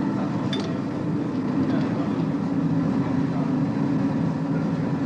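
A steady mechanical drone, like an engine running, with a short click about half a second in.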